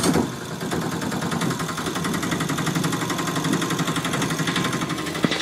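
Engine-like sound for a toy e-rickshaw driving off: a fast, even rattle at a steady level that stops abruptly at the end.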